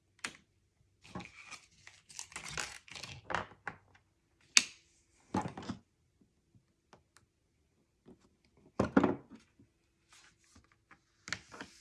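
Cardstock and paper being handled and shifted on a table: rustling and crinkling during the first few seconds, a sharp click, then a few knocks as the pieces are set down.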